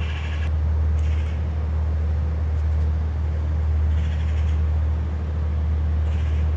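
Diesel standby generator running steadily, a loud low drone. Three brief high-pitched calls sound over it: one at the start, one about four seconds in and one near the end.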